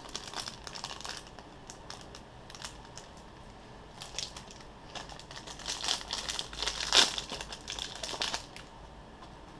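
Clear plastic wrapper of a trading-card pack crinkling in the hands as it is opened, a run of small crackles that is busiest and loudest from about five to eight seconds in.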